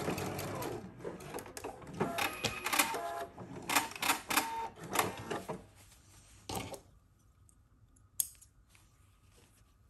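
Sewing machine stitching a scrunchie's opening closed, stopping about a second in. A few seconds of sharp clicks and clatter follow, then a single click.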